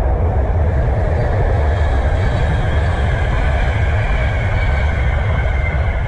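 A train passing by: a steady, loud rumble of wheels and wagons on the rails.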